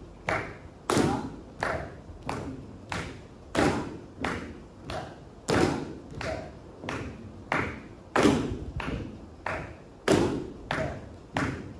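Bare feet stamping on a wooden stage floor in a steady beat of about three stamps every two seconds, some landing harder than others: dancers practising a basic Indian-dance footwork step together.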